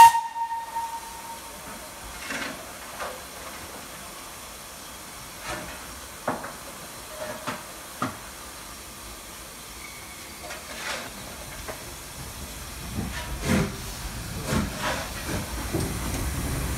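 Steam locomotive hissing, with a short, loud whistle toot at the very start and scattered clanks and knocks. A low rumble builds near the end.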